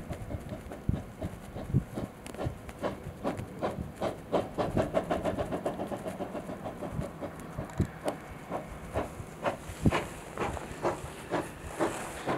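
Steam locomotive working hard in the distance, its exhaust beats coming steadily at about three a second, with wind buffeting the microphone. A hiss of steam grows near the end.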